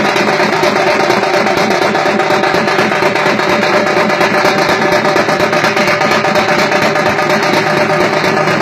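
Thamate frame drums, with larger barrel drums, beaten together by a group in a fast, dense, continuous rhythm.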